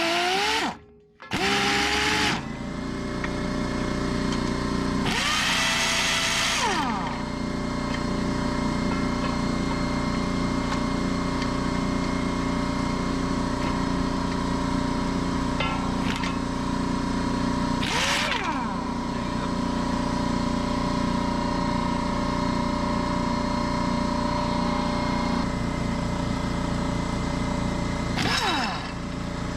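Electric air compressor running steadily, refilling its tank after the impact wrench has drawn it down, with a few short louder bursts of noise over it.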